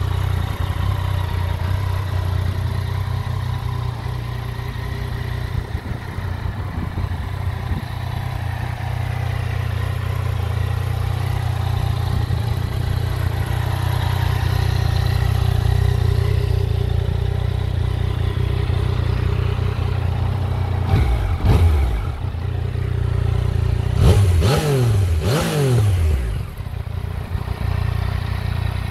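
Yamaha MT-09 Tracer's 847 cc three-cylinder engine idling steadily, with three short throttle blips in the last third, each falling back to idle.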